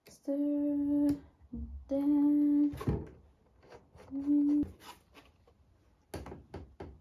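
A voice humming three long notes at one level pitch, each about a second long with short gaps between. Near the end come a few light knocks as the white shelf panels are handled.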